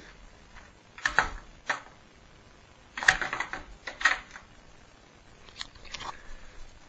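Plastic milk crate clattering and scraping on the floor as dogs paw and nose at it to get at the bones underneath: a few short clatters, the loudest cluster about three seconds in, then fainter knocks near the end.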